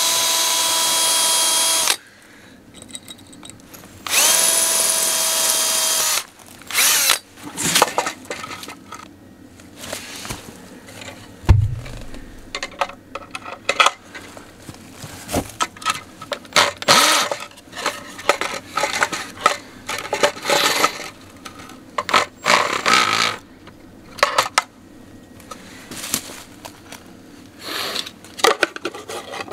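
Cordless drill drilling pilot holes into a stone wall: two runs of about two seconds each, with a steady motor whine. It is followed by short, irregular bursts, clicks and knocks as the box is fitted and fastened to the wall with concrete screws.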